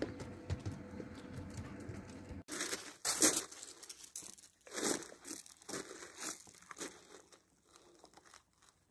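A steady low rustling hiss that stops abruptly about two and a half seconds in, then several separate crunching footsteps on gravel that die away after about seven seconds.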